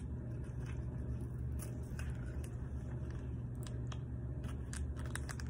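Faint, scattered crinkles and ticks of a paper drink-mix packet being handled and its powder poured into a cup of water, over a steady low room hum.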